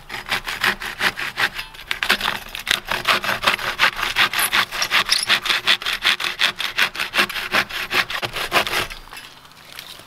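Camp hand saw cutting through a fallen log, quick even back-and-forth strokes that stop about nine seconds in.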